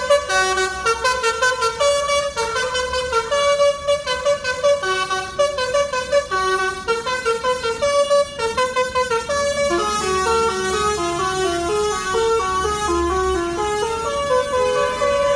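Bus telolet horn, a set of musical air horns, playing a quick tune of stepped notes several times a second. The notes come in short choppy blasts at first and run more smoothly after about nine seconds.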